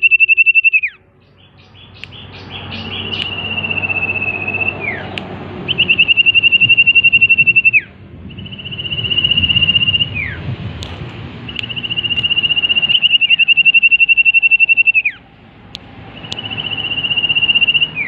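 Common iora (cipoh) singing: a series of long, high, drawn-out whistles, each held steady for two to three seconds and then ending in a quick downward slur, about six in a row with short pauses between.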